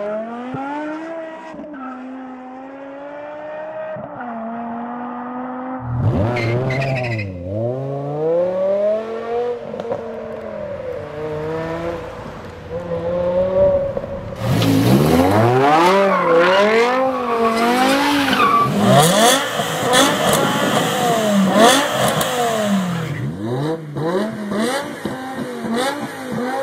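BMW M6 V10 engines, several cars in turn, some with Eisenmann race exhausts, accelerating and changing gear with revs rising and falling. The loudest part is in the middle, with quick rising sweeps of hard acceleration. Near the end a parked M6 is revved.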